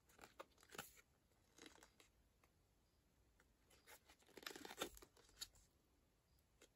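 Faint, scattered rustling and crinkling of packaging being handled, in a few short clusters with a louder patch a little past the middle.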